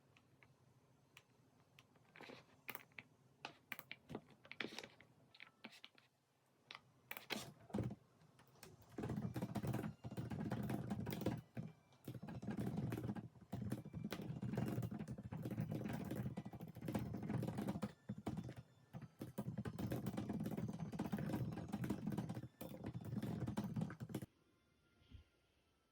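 Typing on a computer keyboard: a few scattered keystrokes at first, then long runs of rapid, continuous key clicks that stop suddenly near the end.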